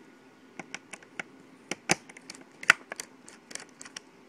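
Irregular sharp clicks and ticks from a screwdriver loosening the screws in the plastic underside of an HP Pavilion dv6 laptop. The two loudest clicks come about two seconds in and a little under three seconds in.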